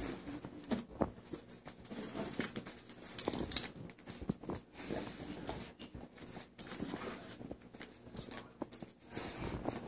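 A dog's metal collar tags jingling in quick, irregular bursts, with scuffing of its body on carpet, as it rubs its head and shoulders into the floor and bounces back up again and again.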